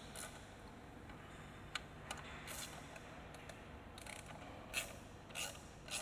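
Light, scattered clicks and taps of small metal parts being handled as the fuel injectors and fuel rail on top of the engine are repositioned by hand, with a few louder clicks near the end.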